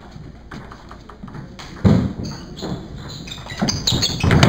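Table tennis rally: the ball ticks sharply off the bats and the table. There is a sudden louder thud about two seconds in and a louder burst of noise near the end.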